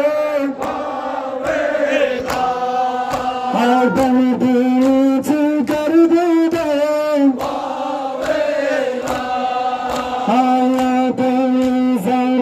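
Men chanting a noha, a Muharram lament, in long held notes that slide between pitches, with sharp regular slaps of chest-beating (matam) in time.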